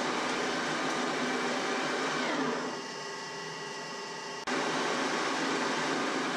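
Geared-head metal lathe running with a steady mechanical whir; about two and a half seconds in the running noise falls away with a dropping whine, leaving a quieter hum, and about two seconds later it comes back abruptly with a click.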